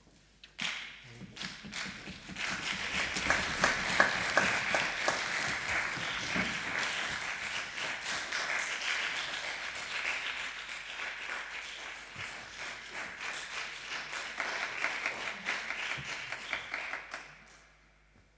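Audience applauding, a dense patter of hand claps that starts suddenly and slowly dies away near the end.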